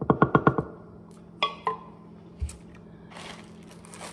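A wooden spoon knocked quickly about six times against the rim of a pot, shaking off syrup. Then come two ringing clinks and a dull thud, and near the end the crinkle of a plastic bag being handled.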